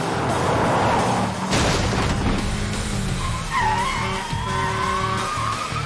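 Car chase sound effects: a car engine rushing past and tyres skidding, with a wavering tyre squeal from about three and a half seconds in, over a driving music score.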